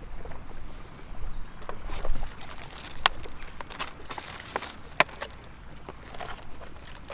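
Hands setting food and a clear plastic food tray down in grass: rustling and light handling noises, with two sharp clicks about three and five seconds in. A low wind rumble on the microphone runs underneath.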